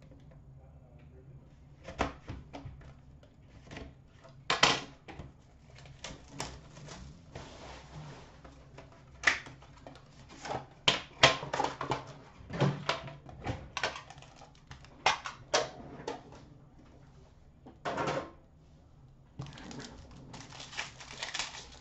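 Hands opening and unwrapping a sealed hockey card box: irregular clicks, taps and rustles of cardboard and plastic packaging, with a denser run of crinkling wrapper near the end.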